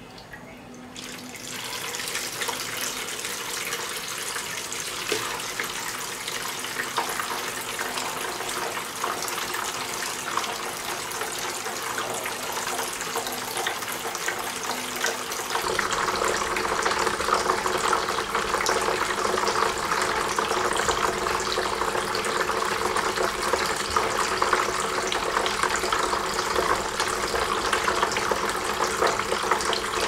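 Water of a small homemade tabletop waterfall fountain trickling and splashing down its tiers into the basin, starting about a second in and growing louder about halfway through.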